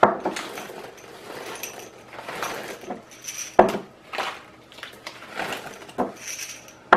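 Chocolate chips poured from a crinkly plastic packet into a small ceramic measuring cup in several short pours: the packet rustling and the chips rattling into the cup, with a few sharp clicks of the cup being knocked or set down.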